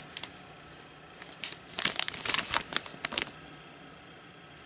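Clear plastic sleeves crinkling as they are handled and flipped, in a cluster of quick rustles from about one and a half to three seconds in.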